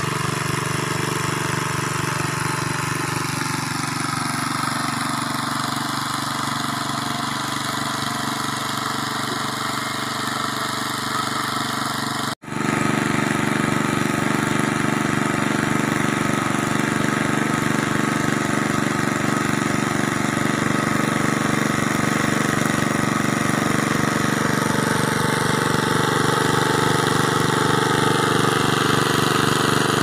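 A small engine running steadily at an even speed. The sound cuts out for an instant about twelve seconds in and comes back a little louder.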